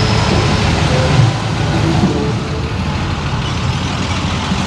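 Engines of 1940s classic cars running at low speed as a line of them creeps past close by, a steady low engine sound that is loudest about a second in.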